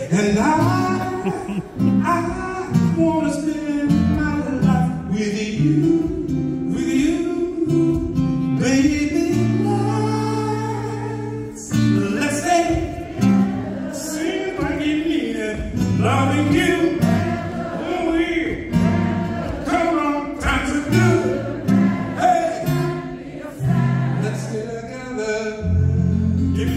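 A man singing into a microphone while accompanying himself on acoustic guitar.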